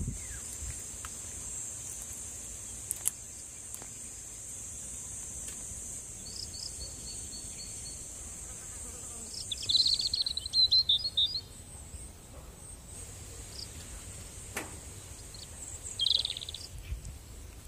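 Insects droning steadily at a high pitch, easing off after about twelve seconds, with a bird chirping a quick run of notes about ten seconds in and again near the end.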